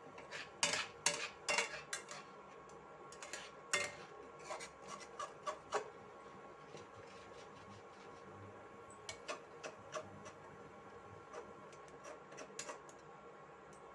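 A spatula and a metal spoon scraping and clinking against a metal pan while stirring milk with chhena balls simmering in it. The scrapes and knocks come thick and fast in the first half, then thin out to a few scattered clinks.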